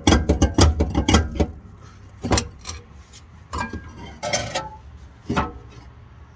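Metal exhaust parts rattling and clanking: a quick run of rattles, then several separate metallic clanks, some ringing briefly, as the Subaru Outback's muffler and exhaust pipe are worked loose and pulled off.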